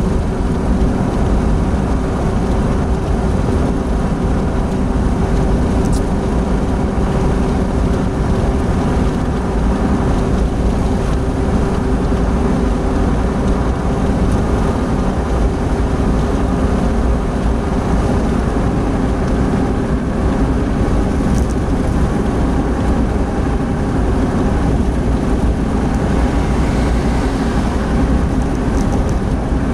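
Opel Blazer's cabin at highway speed, around 100 km/h: steady engine, tyre and wind noise with a constant low hum running underneath.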